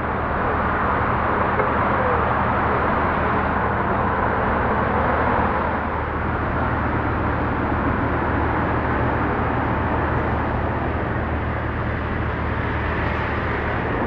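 Steady city traffic ambience beside a river embankment road: a continuous wash of car and road noise over a constant low engine hum.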